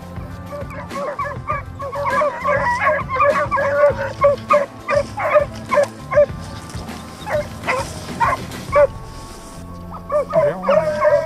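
A pack of Beagle Harrier hounds in full cry: many short, overlapping bays, with a brief lull near the end before they start again. Scent hounds giving tongue like this are running the line of their quarry, here wild boar.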